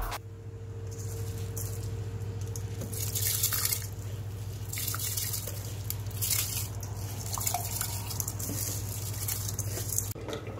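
Soaked rice being tipped from a bowl into a pot of spiced cooking liquid, with water dripping and splashing in short spells over a steady low hum.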